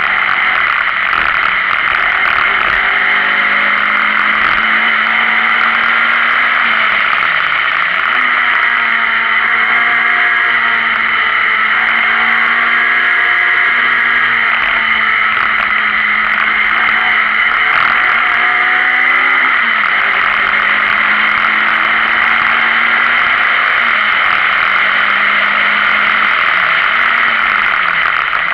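Renault Clio Sport rally car at full speed, heard on board. The engine climbs in pitch and drops back through the gears, with short dips in revs about a third of the way in, two-thirds in and near the end, over a loud steady hiss of road and wind noise.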